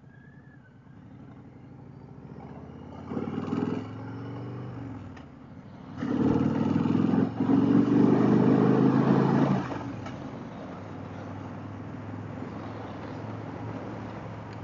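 Harley-Davidson motorcycle's V-twin engine accelerating. The revs climb briefly about three seconds in, then the engine pulls hard and loud from about six seconds to nearly ten before it eases back to a steady cruise.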